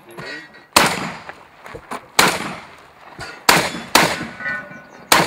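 A shotgun fired five times in a string. The first shots come roughly a second and a half apart, then two close together about half a second apart, and a fifth just before the end.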